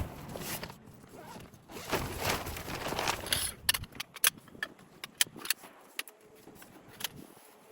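Rustling and handling of camping gear, followed by a run of sharp clicks and taps about halfway through.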